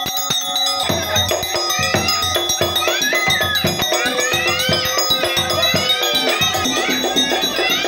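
Topeng monyet street-show music played live: hand drums beaten in a quick steady rhythm with a ringing metal gong-like tone, and a wavering high melody over it for a few seconds.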